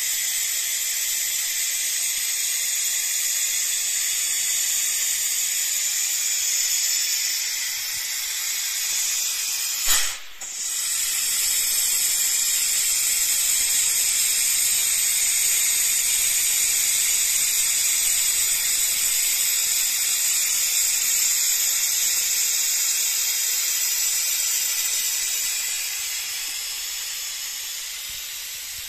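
Steady, loud hiss of air from a hand-held air tool on a red hose, with a brief break and a click about ten seconds in.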